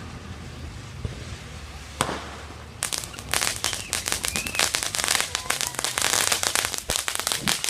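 Fireworks going off: one sharp bang about two seconds in, then from about three seconds a dense, rapid run of crackling pops.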